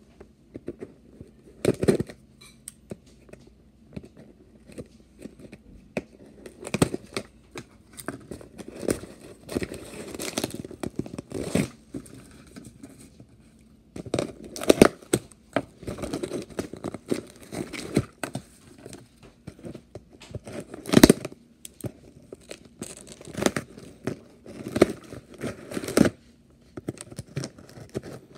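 Cardboard shipping box and its packaging being handled: irregular knocks, scrapes and crinkling, with tearing sounds, the loudest knocks about two seconds in and again about three-quarters of the way through.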